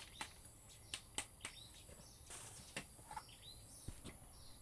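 Scattered light clicks and taps, about seven in all, from handling the parts of a Hitachi G10SS angle grinder as it is taken apart. Faint insect chirping runs underneath.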